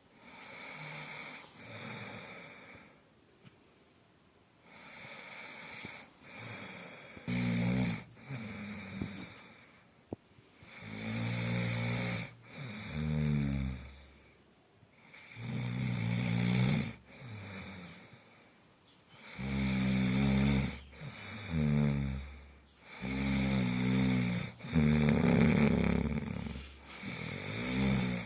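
Snoring in slow, repeated breaths. It starts as soft breathing, and about a quarter of the way in turns into loud, low, buzzing snores every two to four seconds.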